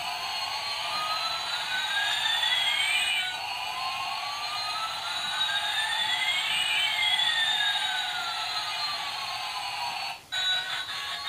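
Electronic jet sound effect from a battery-powered toy airliner's small speaker: two tones glide up and down past each other, rising and falling over several seconds. It cuts out briefly near the end and a run of short stepped electronic notes starts.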